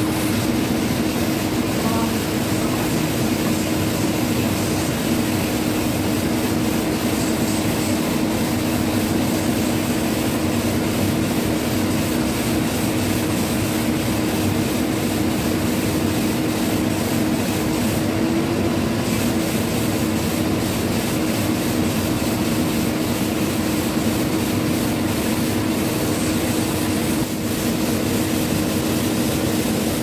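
Vacuum cleaner running steadily, with an even rushing sound over a low drone, as its hose nozzle is drawn across the face of a foam mattress.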